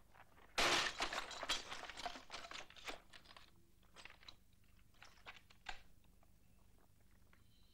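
Hurried footsteps crunching in snow, then a sudden loud crash about half a second in as a man is knocked against a shop front. A couple of seconds of crunching, scuffling clatter follow in the snow and thin out into a few separate knocks.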